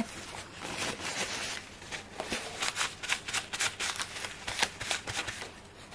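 Card and paper being handled at a stamping platform, a run of quick crackling rustles and clicks.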